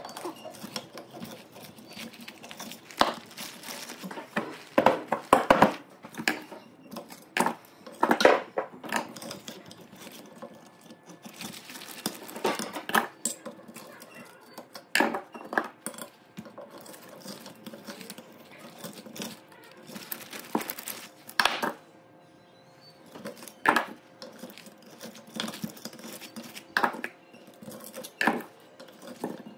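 Metal tools clinking and knocking irregularly against an electric motor's stator and its copper winding, as the burned winding is stripped out.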